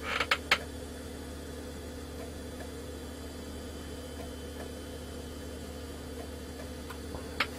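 Steady hum of an old desktop PC running, its fan and power supply droning on fixed low tones over a faint hiss, with a few short clicks in the first half-second and one more near the end.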